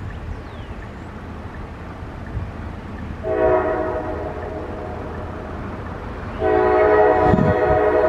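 Diesel locomotive air horn sounding for the grade crossing as the train approaches: a first blast a little over three seconds in, then a louder second blast starting about six and a half seconds in that carries on. A low rumble of the approaching train builds under it near the end.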